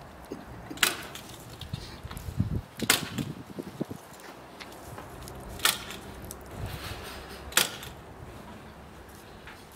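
Lumps of charcoal clinking and knocking in a steel mangal grill as they are moved around by hand: four sharp clacks a couple of seconds apart, with softer clatter between.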